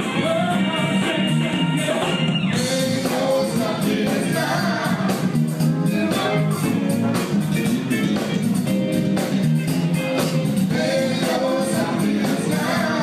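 Live soul band music: a male singer over drums and electric guitar with a steady beat.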